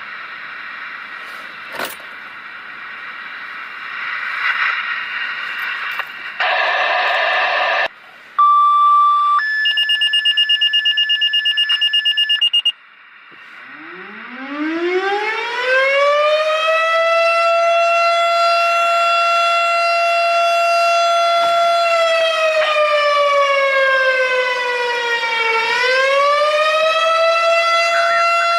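Radio dispatch static and a short burst of noise, then fire alert tones: a steady tone followed by a rapidly pulsing two-pitch tone. Then a Federal Signal STH-10 air raid siren winds up from a low growl to a steady wail. Its pitch sags for a few seconds and then climbs back.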